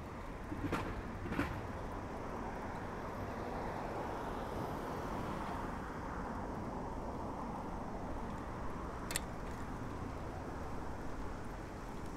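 Steady rush of road traffic heard while cycling, with two knocks under a second apart at the start and a single sharp click later on.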